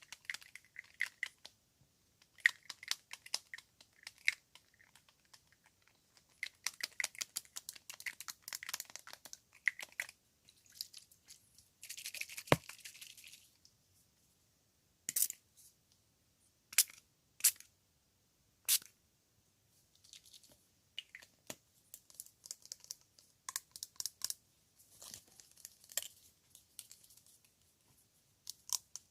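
ASMR trigger sounds from hair-salon props: quick runs of fast tapping and crinkly clicking, a hissing burst lasting about a second and a half near the middle, then a few single sharp clicks before the rapid tapping resumes.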